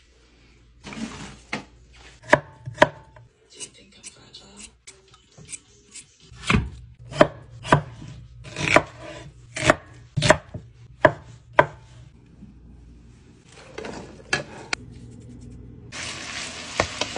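Kitchen knife chopping vegetables on a wooden cutting board: a string of sharp, uneven knocks.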